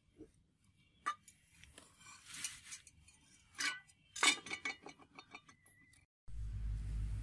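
Steel cleaver blade clinking and scraping against a concrete floor as it is handled: a few sharp clinks with brief ringing and some scraping. About six seconds in it gives way to a steady low rumble.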